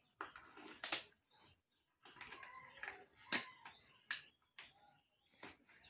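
Irregular clicks, taps and rustling of small objects being handled, as medical equipment is set out and prepared.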